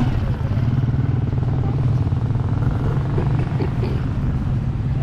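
Motorcycle engine running steadily with a low, even drone.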